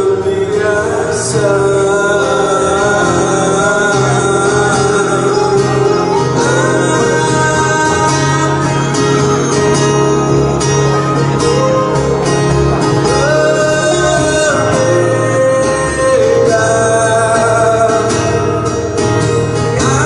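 Live acoustic band: a man sings a melody of long held notes over strummed acoustic guitars and an electric bass guitar.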